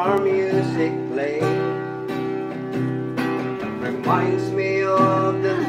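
Acoustic guitar strummed in chords, accompanying a love song.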